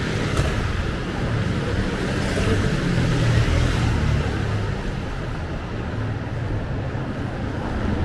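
City street traffic: a motor scooter passes close by about half a second in, over a steady low rumble of passing cars and scooters.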